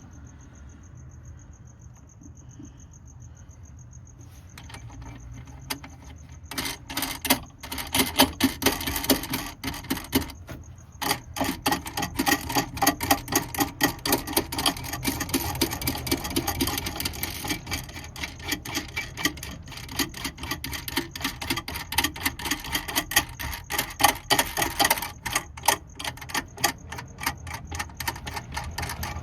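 Hand ratchet wrench clicking in rapid runs, many clicks a second, starting after a quiet first few seconds, as battery hardware is tightened.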